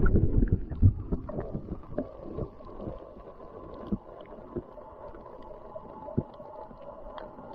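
Muffled sound of seawater picked up by a camera held underwater: a dull, low rumble with scattered soft knocks and clicks, and a sharper knock at the very end.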